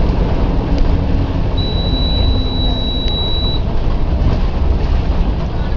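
Volvo B10M bus engine, a mid-mounted diesel, running with a steady low rumble. A steady high beep sounds for about two seconds in the middle.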